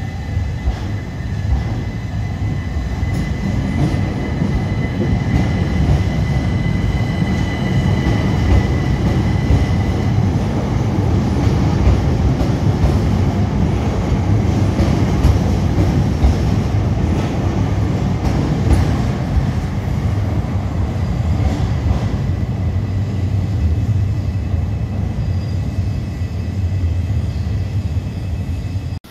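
Southern Class 377 Electrostar electric multiple unit running into the platform, a steady low rumble of wheels and running gear, with a thin high tone over the first ten seconds or so. The sound cuts off abruptly at the end.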